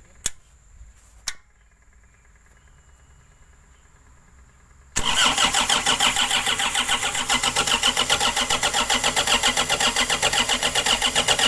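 Two sharp clicks, then about five seconds in the starter cranks the Caterpillar 305.5E2's diesel engine in a steady even pulsing for about six and a half seconds without it catching and running. It does not fire because there is still air in the fuel system after the injection pump was refitted.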